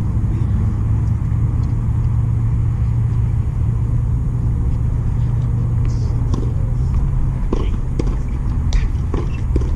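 Steady low outdoor rumble, with a few light knocks in the second half.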